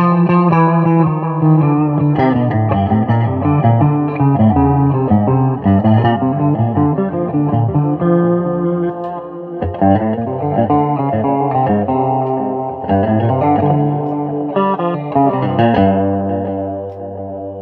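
Guitar music: a guitar played through effects, one pitched note after another without a break.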